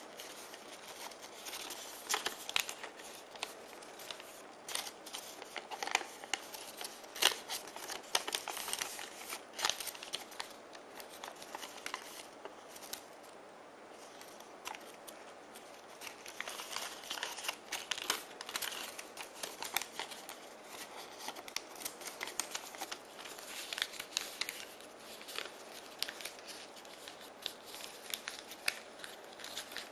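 A sheet of origami paper crinkling and crackling as hands fold and crease it into a module, in a run of short sharp rustles that eases off for a few seconds near the middle.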